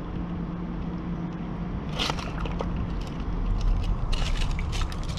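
Crackling scrapes and clicks, starting about two seconds in, from a magnet-fishing rope being hauled and worked to free a snagged find, over a steady low rumble.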